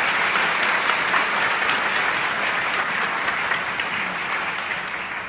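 Audience applause: many hands clapping together, dying down slightly near the end.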